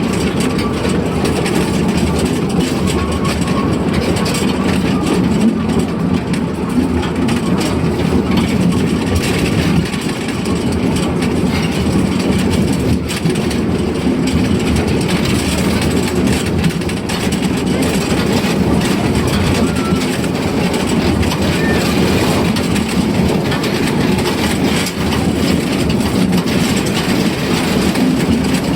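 Steady rumble of a narrow-gauge forest railway train running along the track, heard from aboard a passenger car pulled by the Amamiya No. 21 steam locomotive.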